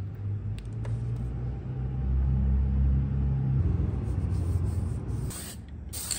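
Low droning rumble with a steady hum, loudest through the middle, then two short hisses of an aerosol vinyl sealer spray can near the end.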